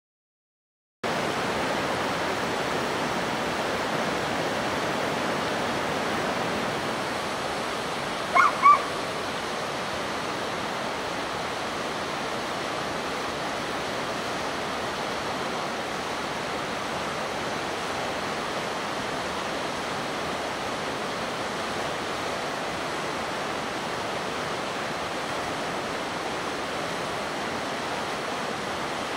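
Steady rushing of a river, starting about a second in, with two short high-pitched calls about eight seconds in.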